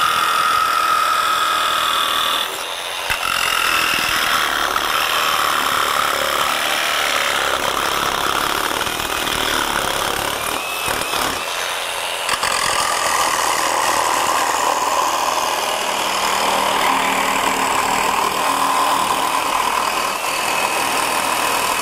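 SKIL 12V PWRCore brushless barrel-grip jigsaw cutting through thin sheet metal, its blade running continuously with a brief dip about two and a half seconds in.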